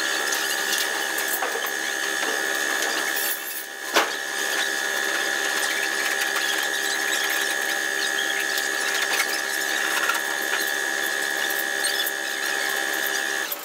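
A steady mechanical whine from a running machine, with a fast clicking rattle under it and one sharp knock about four seconds in.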